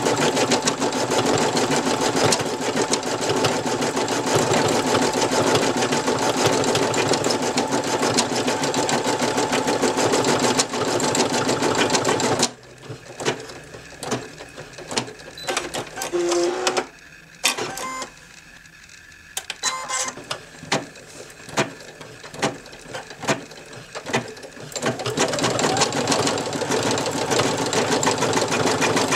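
Brother NV2600 embroidery machine stitching at speed, a fast even rattle of needle strokes. About twelve seconds in it drops to a quieter run of separate clicks and taps for around twelve seconds, then goes back to full-speed stitching near the end.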